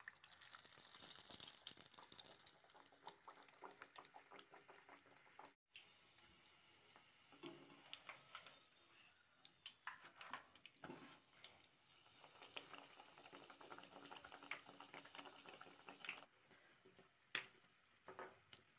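Faint sizzling and crackling of hot oil as a stuffed egg paratha shallow-fries in a pan, with a few sharper clicks of a metal slotted spatula against the pan, the loudest near the end.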